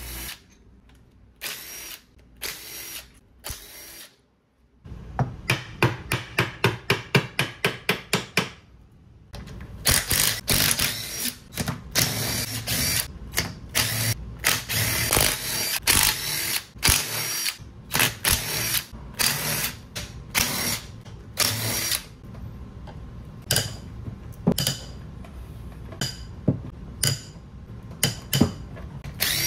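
Cordless drill-driver running crankcase bolts out of a Kawasaki STX-15F jet ski engine in repeated short bursts, with a fast, even run of clicks from about five to nine seconds in.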